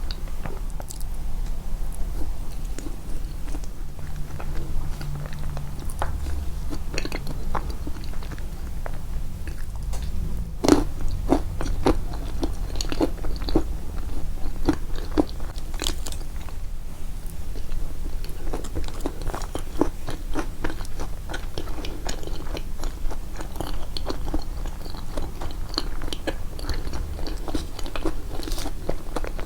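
Close-miked biting and chewing of a walnut and banana yoghurt cake: soft, wet chewing with many small crunches. The crunches come thickest a little before the middle.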